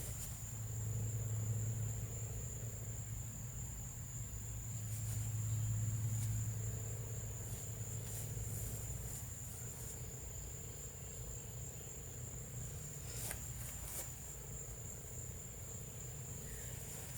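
Insects trilling steadily as one unbroken high-pitched tone, over a steady low hum that swells and fades. A couple of brief knocks come about three quarters of the way through.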